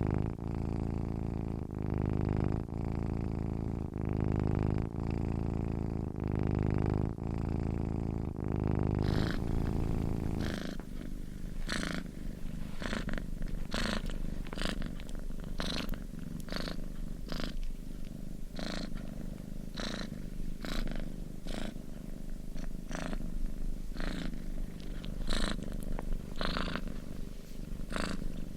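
Domestic cat purring, the deep purr swelling and fading about once a second. About ten seconds in the deep pulsing gives way to a quieter purr, with short crisp sounds at irregular intervals.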